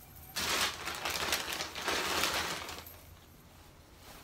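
Plastic packaging bag rustling and crinkling as it is handled, for about two and a half seconds, then stopping.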